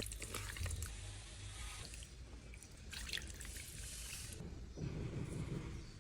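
Water trickling, with scattered light clicks.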